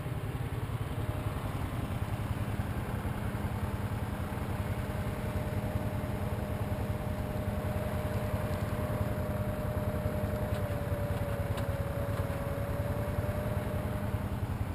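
Honda ATV engine idling steadily close by, with a thin steady whine above the idle through most of it.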